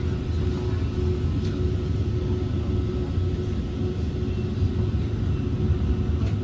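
Tram running along its track: a steady low rumble with a faint steady hum above it.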